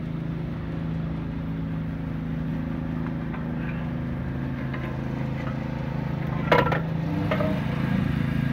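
Small lawn mower engine running at a steady pitch, with a few sharp metallic clinks of wrench work on the car's front suspension about six and a half to seven seconds in.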